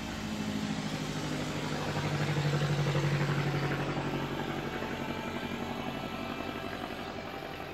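Airplane engine droning overhead as it passes. It grows louder to a peak about three seconds in, then fades, its pitch slowly sinking.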